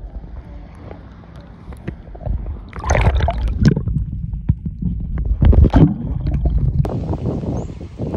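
Sea water sloshing and gurgling around a camera at the surface as it dips underwater, with two loud splashing surges about three and five and a half seconds in. About a second before the end the sound cuts to a steadier outdoor background.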